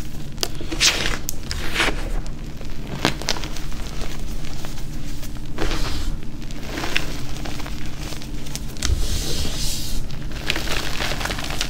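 Hands squeezing and pressing into crushed dyed gym chalk powder: soft, uneven crunching and crumbling, with a few sharper crunches scattered through.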